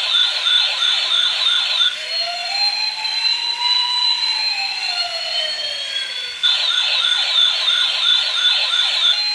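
Toy fire truck's electronic siren sound effect: a fast warbling yelp at about three warbles a second, changing about two seconds in to a slow wail that rises and then falls, then going back to the fast warble about six and a half seconds in.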